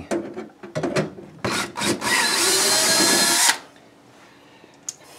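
Cordless drill backing out a quarter-inch hex-head screw from the freezer's rear panel. A few light knocks come first, then the drill runs for about a second and a half with a faint whine and stops suddenly.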